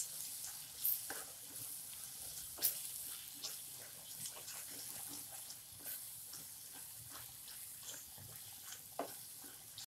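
Tomato and spice masala frying with a gentle sizzle in a non-stick pan while a spatula stirs it, with scattered scrapes and taps of the spatula against the pan.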